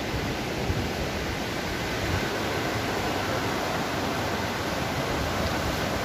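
Steady rush of a mountain stream tumbling over rocks below a waterfall.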